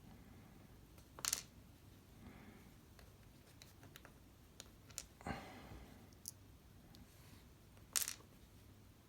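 Small metal lock parts clicking and rattling as a disassembled lock cylinder's pins are tipped out and handled: a few sharp clicks, with a longer scraping rattle about five seconds in.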